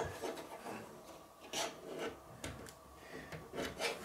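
A few short scrapes and rubs of a graphics-card support being pushed along inside a PC case while it is worked into the groove it should snap into.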